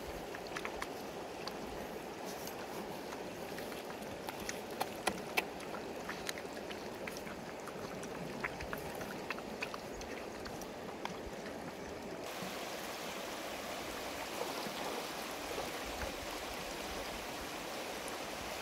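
Puppies eating from a bamboo trough: scattered small clicks of chewing and lapping, a few louder ones about five seconds in, over a steady rush of running water. The clicks die away about twelve seconds in.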